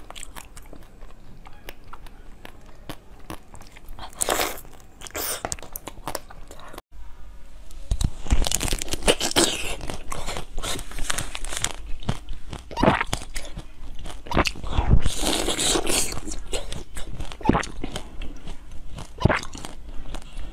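Close-miked bites and chewing of a molded jelly treat, then, after a brief break about seven seconds in, louder and more frequent crunching bites into a whole orange eaten with its peel.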